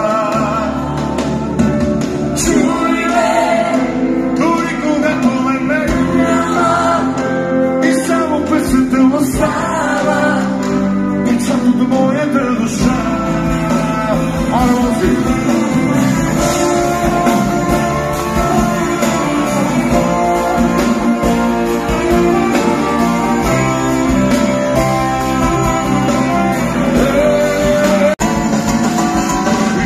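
A live pop band playing through a concert PA: a male lead vocal over guitar, trumpet and saxophone, with a brief dropout in the sound near the end.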